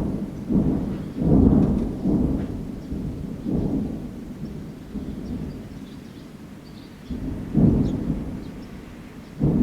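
Distant booms of military live-fire training rolling in one after another like thunder: several close together at first, then a lull, then two more near the end.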